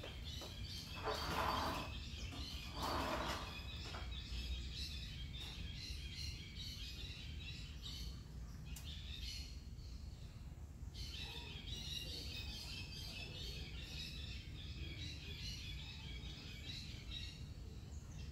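Dense, high-pitched chirping from animals in the trees, with a couple of short breaks. Two brief rushing swells of noise come in the first few seconds.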